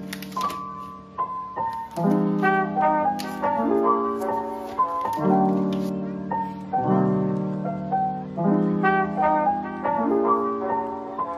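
Soft instrumental background music: piano with mellow, brass-like chords, a new chord about every second and a half. Faint crackles of plastic protective wrap being peeled off a keyboard come near the start and again about three seconds in.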